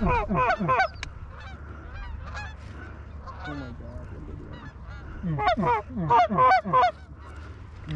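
Goose honks and clucks in quick, loud runs of about five a second, at the start and again from about five seconds in, with fainter scattered honks between.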